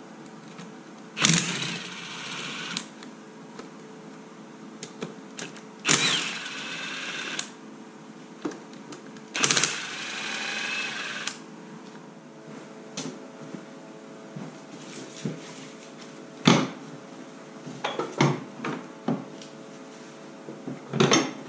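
Milwaukee cordless power tool running in three bursts of about a second and a half each, driving fasteners on a snowmobile engine. Several sharp metallic clicks and knocks of parts and tools follow.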